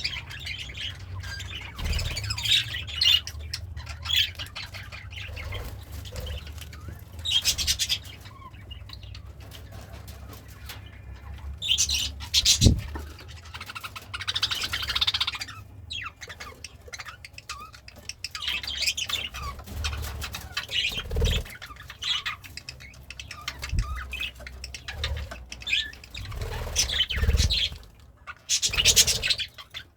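Pet budgerigar chirping and chattering in bursts, with squawks now and then and a few soft low thumps.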